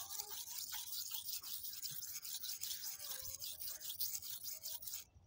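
Knife blade being drawn in repeated strokes across a wet red sharpening stone, a gritty rasping hiss; it stops abruptly just before the end.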